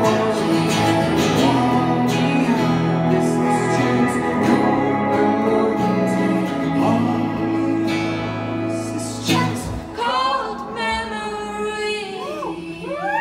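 Live band playing a song with a female lead vocal over electric and acoustic guitars and bass. The bass and full band drop out about ten seconds in, leaving only higher rising-and-falling tones as the song ends.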